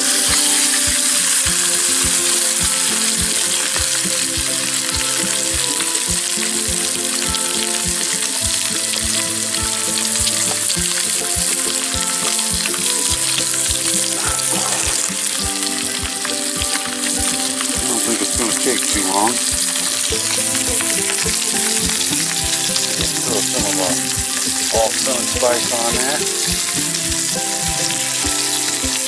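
A whole scaled and scored panfish frying in butter in a small pan on a propane camp stove, sizzling steadily and evenly throughout.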